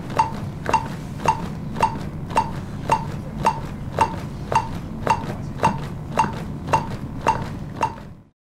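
CPR metronome beeping about 110 times a minute to pace chest compressions, over a low steady hum; the sound fades out near the end.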